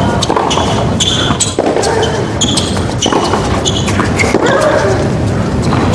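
Tennis rally on a hard court: repeated racket strikes and ball bounces, with short high squeaks of players' shoes on the court, over steady arena background noise.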